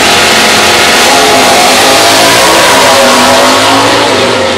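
Two drag-race cars launching side by side and running hard down the strip at full throttle. Their engines are very loud and the pitch climbs as they accelerate.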